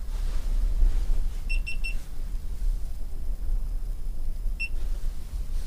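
Three quick high electronic beeps about a second and a half in, then a single beep near the end, over a steady low rumble.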